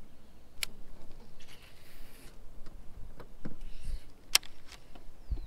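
Hands working a baitcasting rod, reel and fishing line: a few sharp clicks, the loudest a little past four seconds in, with smaller ticks and brief soft rustling.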